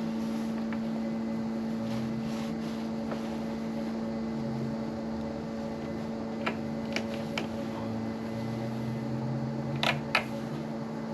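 Steady fan hum with a constant low drone, with a few light clicks and taps from hand work on the wiring: three about six to seven seconds in and two close together near the end.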